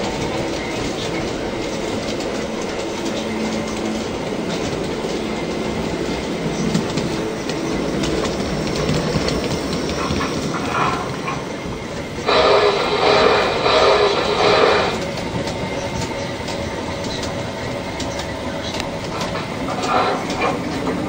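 G-scale model train running on the track: steady rolling noise with wheels clicking over the rail joints. About twelve seconds in, a louder sound starts and stops abruptly, lasting about two and a half seconds.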